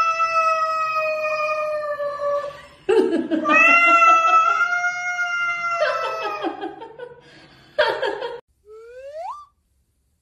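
Domestic cat yowling at another cat in a standoff: two long, drawn-out yowls held at a steady pitch, with a short hiss-like burst between them. Rougher, noisier yowling follows, then a short rising squeal near the end before the sound stops.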